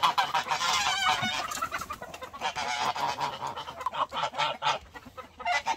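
A flock of farm poultry clamouring, with many short squawks and honking calls overlapping, loud enough to be called noisy. The birds are calling for food while others are being fed.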